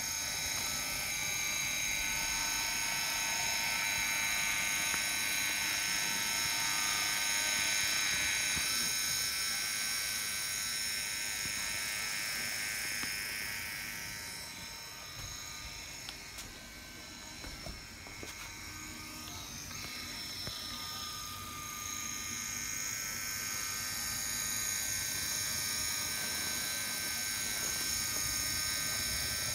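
Brass HOn3 model GE 50-ton diesel locomotive running under power: the whine of its can motor and heavily reduced gearing driving through universal joints, with its wheels rolling on the rails. A steady whine of several high tones grows fainter about halfway through and then returns.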